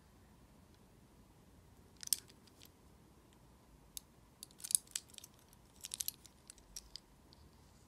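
Light clicks and taps of a small die-cast Hot Wheels car being turned over in the hand, its metal body and plastic wheels knocking against fingers. They come scattered: one about two seconds in, then clusters around five and six seconds.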